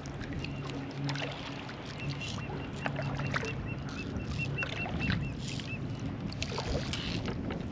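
Water lapping and small knocks around a kayak hull, over a steady low hum. From about two seconds in, a quick run of short high chirps, about five a second, lasts for several seconds.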